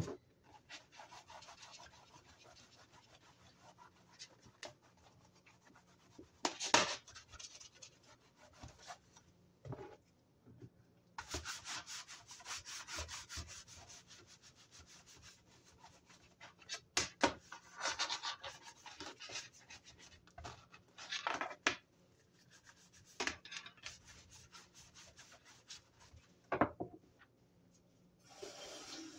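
Bristle dish brush scrubbing a wet, soapy countertop: stretches of fast back-and-forth scrubbing strokes, broken by a few sharp knocks.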